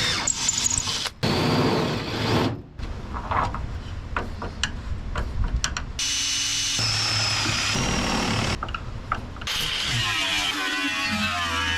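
Power tools working, heard in short cut-together snatches with knocks and clicks between them; guitar music comes in near the end.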